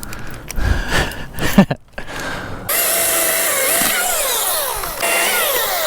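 A few knocks and rattles, then about two and a half seconds in a chainsaw starts running loudly and steadily, its pitch repeatedly dropping and recovering as it cuts into the wood.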